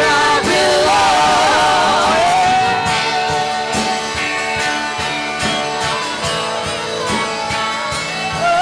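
Live worship music: a band plays sustained chords with a steady beat, and a sung line wavers in pitch during the first few seconds.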